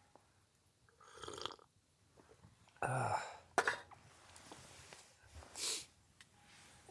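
A few short breathy bursts from a person, the loudest about three seconds in, with a sharp click just after it.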